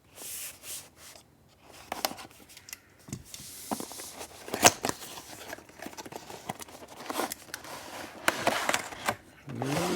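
Packaging being opened by hand: rustling, tearing and crinkling with scattered clicks and taps, the sharpest click a little before the middle.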